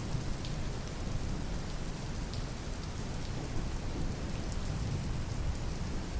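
Steady rain falling: an even hiss with a deep low rumble and a few brighter drop ticks scattered through it.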